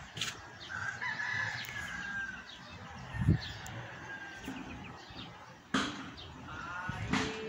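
A rooster crowing, two long calls, one about a second in and another near the end. A dull thump about three seconds in and a sharp knock near six seconds.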